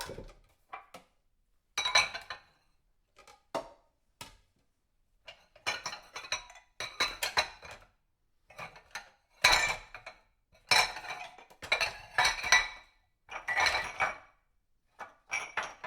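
Dishes and cutlery clattering and clinking as they are handled and stacked, in irregular bursts with short pauses between.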